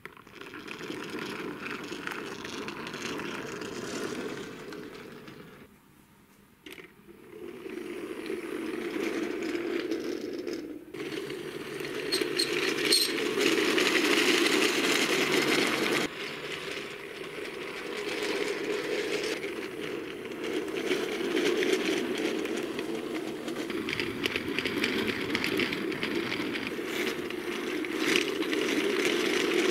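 Toy semi-truck with a car-carrier trailer pushed by hand across a wooden floor, its small wheels rolling with a steady rattle. The rolling stops briefly about six seconds in.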